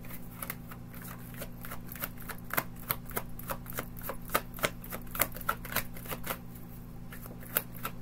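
A deck of oracle cards being shuffled by hand: an irregular run of crisp card clicks, several a second.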